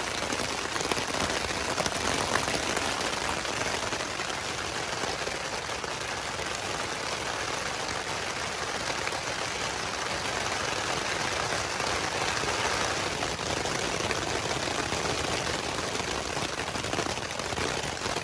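Steady rain falling on a Zpacks Duplex ultralight tent, heard from inside the tent: an even hiss of many drops with no pause.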